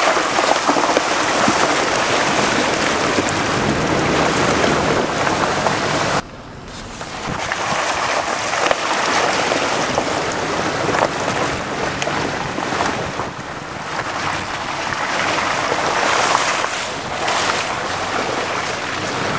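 Pickup truck's tyres churning through a muddy water hole, water splashing and spraying off the side, with wind buffeting the microphone. The noise drops off abruptly about six seconds in, then builds again.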